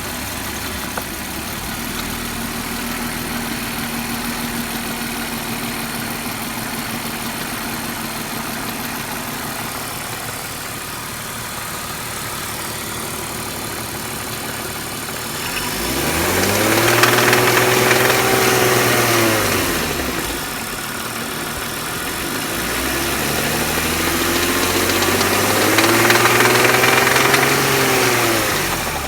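BMW M52B25TU 2.5-litre straight-six idling, then revved twice, each rev rising, held for a few seconds and dropping back to idle. The engine is being checked for a rattling, knocking noise after new VANOS seals, an anti-rattle kit, hydraulic lifters and chain tensioners; the owner says the noise is almost gone.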